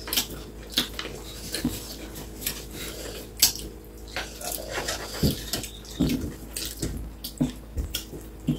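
Mouth sounds of people eating with their hands: wet smacking, lip clicks and chewing, in irregular short bursts, a few of them sharp and loud.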